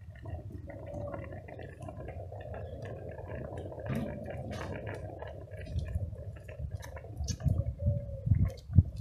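Tomatoes and chopped red peppers simmering in a large pan over a wood fire: soft bubbling with scattered small pops and ticks, and a few low thumps near the end.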